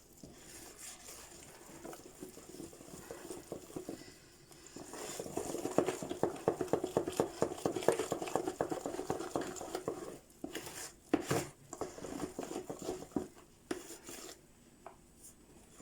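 A utensil stirring cake batter in a mixing bowl as flour is worked in, scraping and knocking against the bowl. The strokes come fast and dense in the middle, then give way to a few separate knocks on the bowl.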